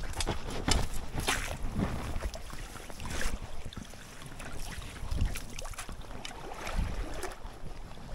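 Water splashing and sloshing in irregular bursts in a stream, over a low rumble of wind on the microphone.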